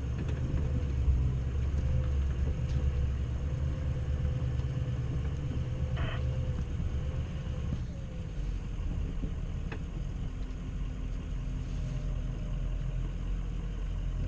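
Ford F-250 pickup's engine running with a steady low rumble, and a faint thin whine that wavers and fades out a little past halfway.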